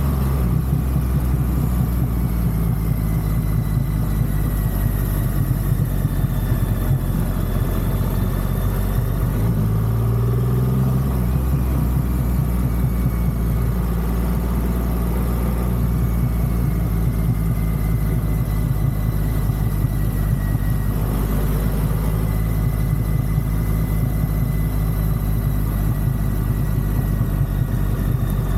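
Triumph Rocket 3 motorcycle's inline three-cylinder engine running steadily, with a brief rise in pitch about ten seconds in.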